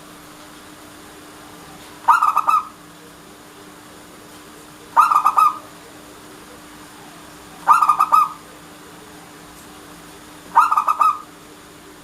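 Zebra dove (perkutut) cooing: four short phrases of quick staccato notes, one about every three seconds.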